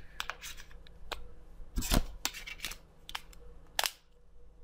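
Plastic clicks and snaps as a Xiaomi Redmi 2 smartphone is put back together: the battery fitted and the plastic back cover pressed on. There are about eight clicks, the loudest about two seconds in and another just before four seconds.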